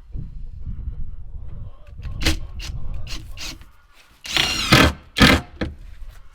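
Carpentry on wooden framing: a few sharp knocks of wood and tools, then two louder, longer scraping noises near the end, over a low rumble.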